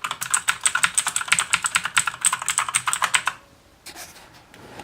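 Fast typing on an Aukey mechanical keyboard with clicky blue switches: a rapid run of key clicks that stops about three seconds in, then a few scattered clicks.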